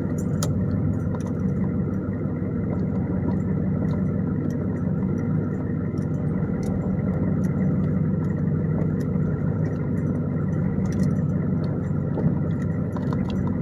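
A 6.5-litre turbo-diesel V8 pickup, heard from inside the cab, running at a steady low drone while driving with a trailer in tow.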